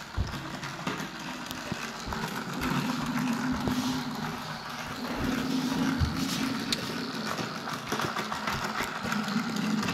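Small toy crab robot's electric gear motor whirring steadily as the robot walks on its plastic legs, the pitch wavering slightly, with occasional clicks.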